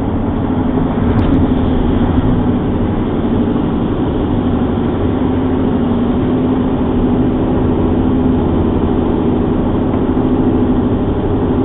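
Steady road and engine noise inside a car's cabin at freeway speed: an even drone of tyres and engine with a constant low hum.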